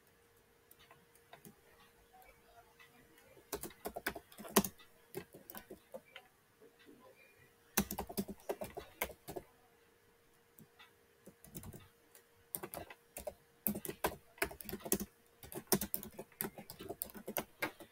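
Typing on a computer keyboard: bursts of key clicks with pauses between, beginning about three seconds in and busiest over the last several seconds.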